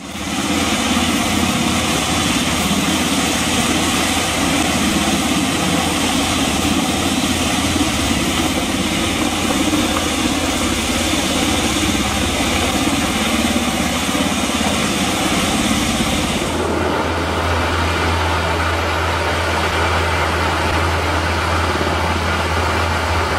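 Search-and-rescue helicopter running at a low hover close overhead: a loud, steady engine and rotor drone. About two-thirds of the way through, the high hiss falls away and a stronger low rotor beat comes to the fore.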